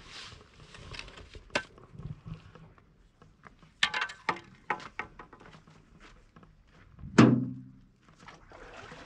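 Scattered knocks and a cluster of clattering strikes, then one heavy thud with a low ringing tail about seven seconds in.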